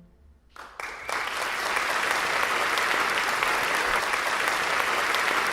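Audience applauding: clapping breaks out under a second in, swells quickly and then stays full and steady.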